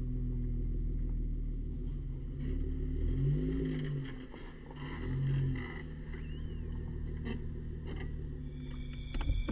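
Jeep Wrangler JK Rubicon engine running at low speed as it crawls over rough ground, its pitch rising and falling in a few brief swells as the throttle is worked.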